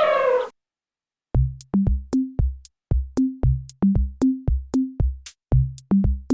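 An elephant's trumpet call tails off with a falling pitch in the first half second. After about a second of silence, an electronic drum-machine beat starts, with deep bass-drum hits and sharp high clicks at about three a second.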